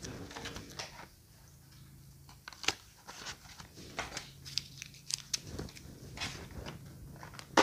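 Small packaged health and beauty products being handled and set down: scattered light clicks, taps and crinkles of boxes and plastic packaging.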